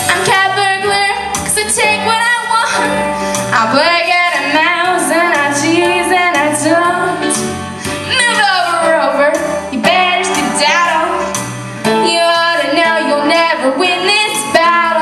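Live song: a woman sings into a microphone, her voice sliding up and down in pitch, over keyboard accompaniment with a steady, repeating bass line.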